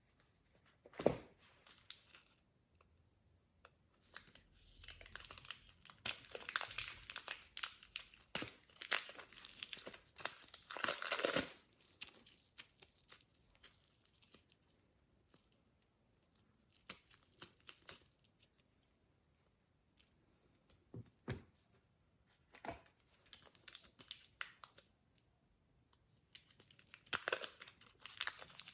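Glossy slime being worked by hand, giving irregular sticky crackles and sharp pops in bursts, with a quieter lull in the middle.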